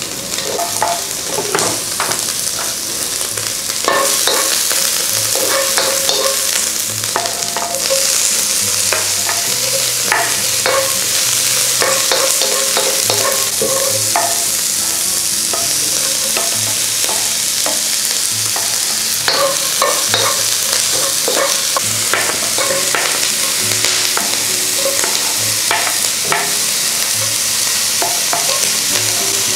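Diced mushrooms and vegetables sizzling in oil in a wok over high heat, stirred with a wooden spoon that scrapes and taps against the pan. The sizzle gets louder about four seconds in.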